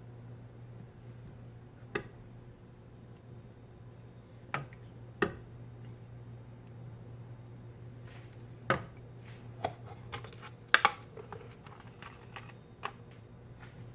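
Metal spoon clinking against a ceramic plate as curry is spooned onto rice: scattered sharp clinks, a few close together near the end, over a steady low hum.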